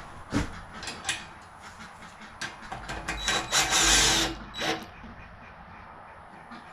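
Impact wrench hammering for about a second on a mini bike's wheel nut, a few seconds in, after a 14 socket has been fitted. It is preceded by a few sharp clicks of the socket and tool being handled.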